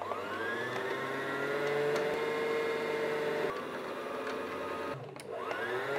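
Brother GS2700 sewing machine's motor winding the bobbin under the foot pedal: a steady whine that rises in pitch as it spins up over the first second and holds, then drops off about three and a half seconds in. Near the end the motor runs again briefly, its pitch rising and then falling.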